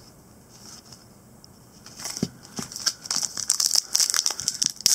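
Foil trading-card pack wrapper being crinkled and torn open by hand. It starts about two seconds in, after a quiet stretch, as a dense crackling that grows louder.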